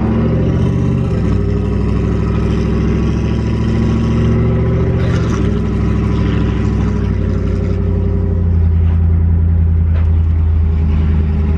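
Pickup truck's V6 engine and exhaust running steadily while driving, heard from inside the cab, growing a little louder about eight seconds in.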